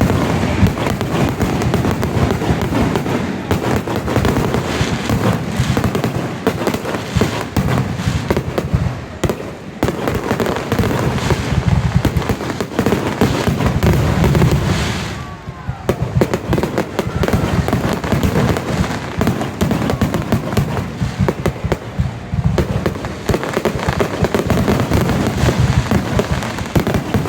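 Fireworks display in a rapid, continuous barrage of bangs and crackling bursts, easing briefly about fifteen seconds in before building again.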